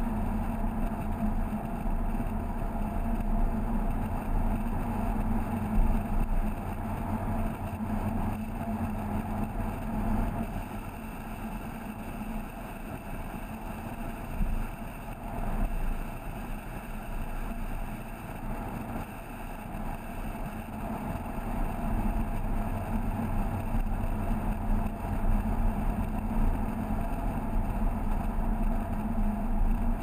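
Mazda MX5's four-cylinder engine droning at a steady cruise under road and wind noise. It eases off and gets quieter from about a third of the way in, then picks up again after two-thirds.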